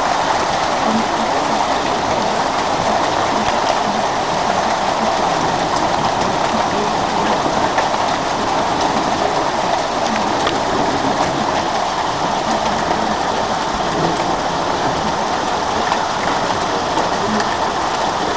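Hailstorm: a steady, dense hiss of hailstones falling and pelting the ground, with scattered small clicks from individual stones.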